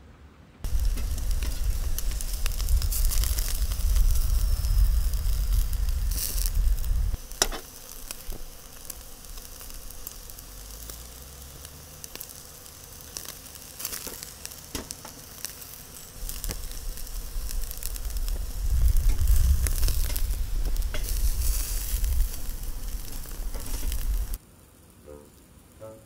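Meat sizzling and frying on a camp grill, a steady crackling hiss under a low rumble that swells and fades twice and cuts off abruptly near the end.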